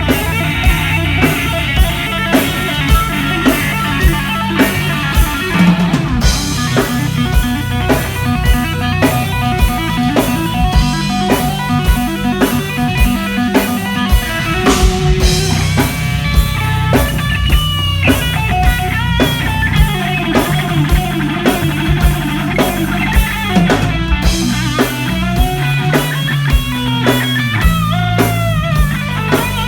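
A rock band plays live: distorted electric guitar over bass and a drum kit keeping a steady beat. In the second half the guitar plays lead lines with bent notes.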